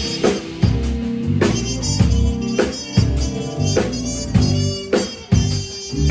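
Muted trumpet playing a blues line, held nasal-sounding notes over a backing with a regular beat.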